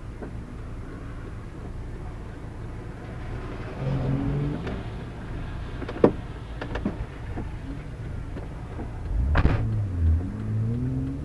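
Mazda MX-5's four-cylinder engine heard from inside the cabin, running at low revs with a short rise in revs about four seconds in and again near the end. A few sharp knocks sound through the car, the loudest about six seconds in and another about nine and a half seconds in.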